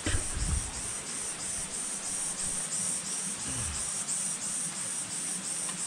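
Forest insects chirping in an even train of high, buzzy pulses, about three a second, with some low scuffing and handling noise near the start.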